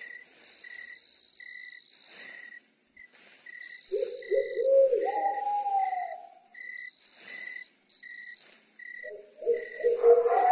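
Night forest ambience: crickets and insects chirping, with a short chirp repeating about twice a second over a steady high trill. An owl hoots about four seconds in and again near the end.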